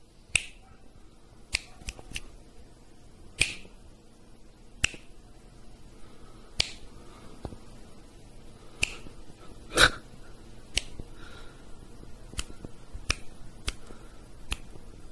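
Finger snaps, about fourteen single snaps at uneven gaps, the loudest a little past the middle, calling a cat over.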